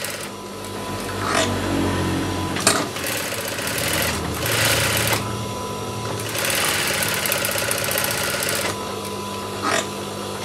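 Industrial sewing machine stitching a fabric seam in about four short runs, with a steady motor hum between them and a few sharp clicks.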